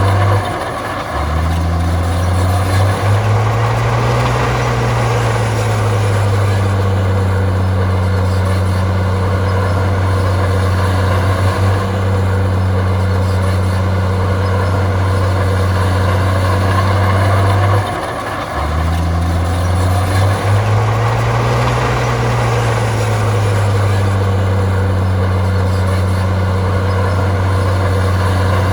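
Komatsu bulldozer's diesel engine running steadily under load. Twice, about a second in and again around eighteen seconds, the engine note drops briefly, then climbs and eases back down over a few seconds.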